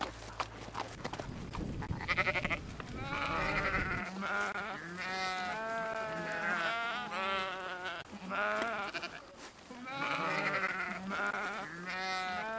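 Sheep bleating repeatedly, long quavering calls one after another.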